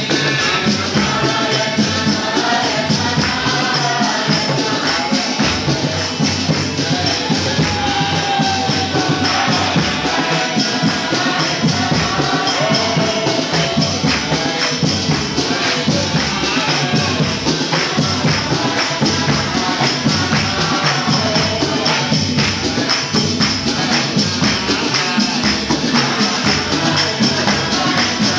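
Kirtan: voices singing a Hindu devotional chant together, over jingling hand percussion that keeps a steady, even beat.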